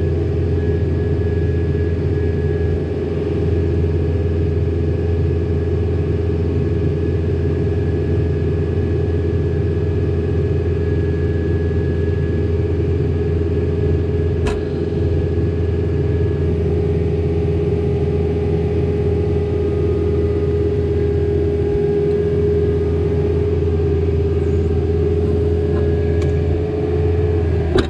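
Excavator's diesel engine running steadily, a low rumble with a constant hum over it, while the bucket and thumb are eased in slowly; one faint click about halfway through.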